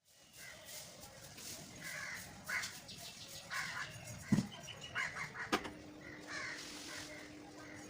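Crows cawing, repeated harsh calls spaced about a second apart. Two sharp knocks sound about midway, the loudest moments.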